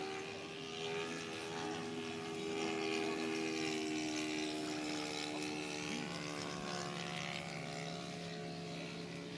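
Small propeller floatplane's engine droning steadily overhead as it flies past, its pitch sinking slowly. It is loudest about three seconds in, and a lower hum joins it about six seconds in.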